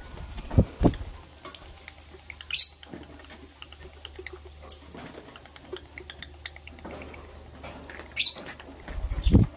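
Lovebirds giving a few short, sharp high chirps over light scratching and pattering, with a couple of low thumps near the start and a cluster of them near the end.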